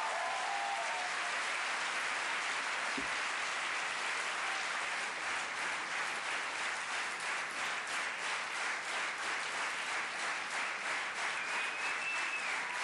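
Large theatre audience applauding, a dense steady clapping that becomes more rhythmic in the second half.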